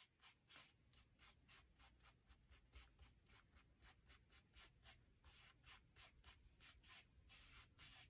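Faint, quick rubbing strokes of a tissue wrapped around a fingertip, blending pastel on drawing paper: about four short strokes a second, with a few longer strokes after the middle.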